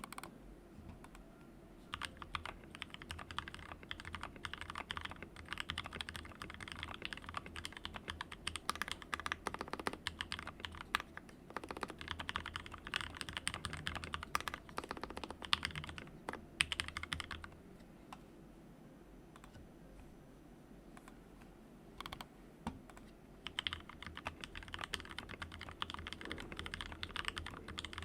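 Typing on a mechanical keyboard with Gateron Yellow linear switches, a soldered XD60 Rev 3 60% board with blank keycaps: rapid runs of keystrokes, with a pause of about six seconds in the middle before typing resumes.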